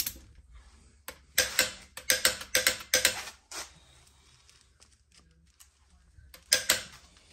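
Socket wrench ratcheting on a car wheel's lug nuts: a run of sharp clicking strokes starting about a second in and lasting some two and a half seconds, then two more strokes near the end.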